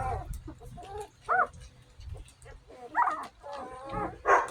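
One-week-old puppies whining and squeaking in short, high cries that rise and fall in pitch. There are a few separate cries, one about a second and a half in, a cluster around three seconds, and a louder one near the end.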